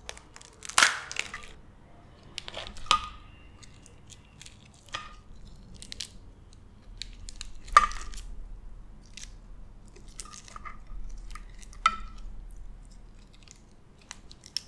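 Cooked blue crab shell being cracked and pulled apart by hand, with a handful of sharp snaps, the loudest about eight seconds in, and small wet clicks and crunches between them as the meat is picked.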